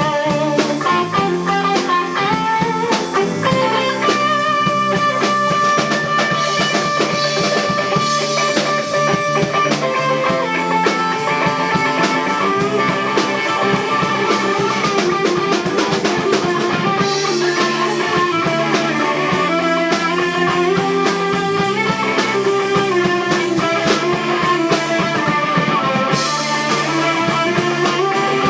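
Overdriven lead electric guitar solo from a 1986 Gibson ES-335 through an overdrive pedal and a Uni-Vibe-style pedal with delay into a 1974 Fender Deluxe Reverb. It plays long held notes and bends over a rock band with drums.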